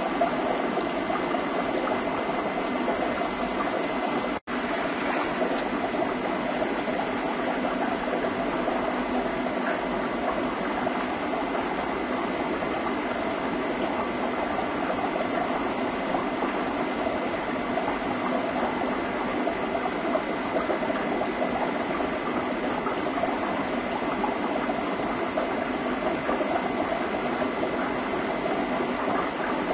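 Steady bubbling and running water from an aquarium's filtration, with a faint thin steady tone over it; the sound drops out for an instant about four and a half seconds in.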